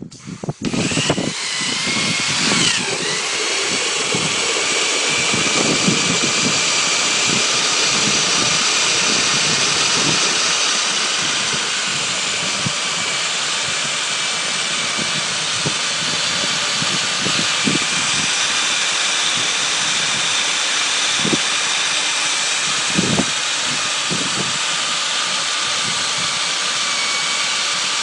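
Pressure washer running, its lance jetting water into a bucket of potatoes to scour the skins off: a loud, steady hiss of spray over the machine's drone, starting about a second in, with a few brief knocks.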